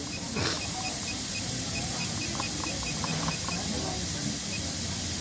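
SunStar industrial sewing machine control panel beeping as a button is held down, scrolling a setting value down: a quick run of short high beeps, about five a second, thinning out near the end, over a steady hiss.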